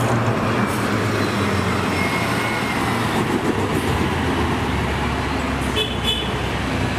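Bus sound effect: a steady rumble of a bus engine running amid traffic noise, with a faint high tone about six seconds in.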